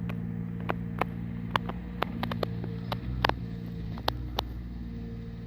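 Engine of a tree-service vehicle running steadily with a low drone as it moves into the yard, its pitch shifting slightly about three seconds in. Scattered sharp clicks and clanks sound over it.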